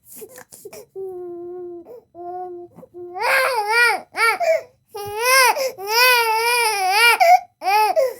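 Baby crying: short catches of breath and soft, even whimpers at first, then from about three seconds in loud wails that rise and fall in pitch, one long drawn-out wail near the end followed by a shorter one.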